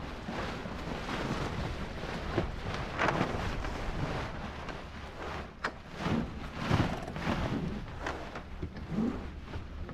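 Wind buffeting the microphone and water rushing along the hull of a Melges 24 sailboat under way, rising and falling in gusts. A single sharp click about five and a half seconds in.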